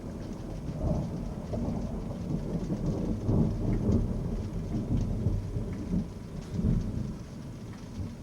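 Thunder rumbling, building from about a second in, rolling loudest in the middle and easing away near the end.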